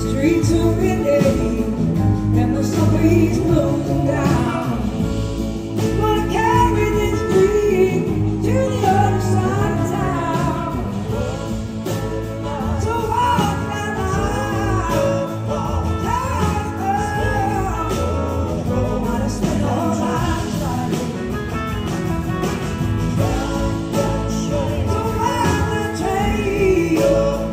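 Live blues-rock band playing, with a woman singing lead over electric guitar and the full band.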